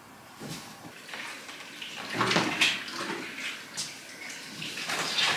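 Fabric rustling with soft bumps as bedding and laundry are handled, in irregular bursts that are loudest a little over two seconds in.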